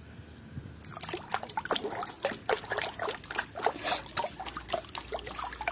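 Hand swishing a toy water buffalo through a plastic tub of muddy water, with quick irregular splashes and trickling drips that start about a second in.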